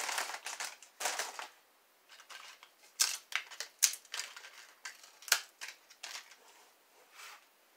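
Hard taco shells cracking and crunching as they are broken apart by hand. A quick run of crackling comes first, then scattered single sharp snaps.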